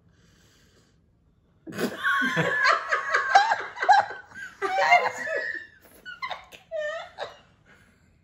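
A woman bursts into hearty laughter about two seconds in, her hand over a mouthful of food. It trails off into shorter, breathy bursts of laughter.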